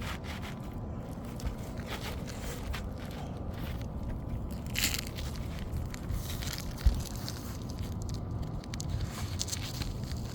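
Granule-surfaced asphalt shingle scraping and crunching as it is slid up into place under the course above, in scattered short scrapes and clicks over a steady low rumble. There is a brief louder scrape about five seconds in and a single sharp low bump about seven seconds in.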